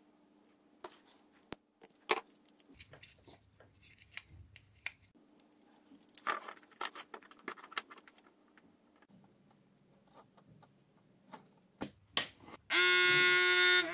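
Small plastic and metal parts of a digital blood pressure monitor clicking and rustling as it is taken apart by hand, with a few sharper clicks. Near the end a loud, steady droning tone with many overtones starts and holds.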